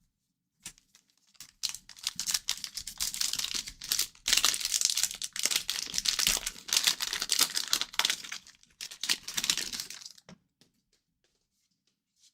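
A hockey card pack's wrapper being torn open and crinkled: a dense crackling and rustling that starts a second or two in and stops a couple of seconds before the end.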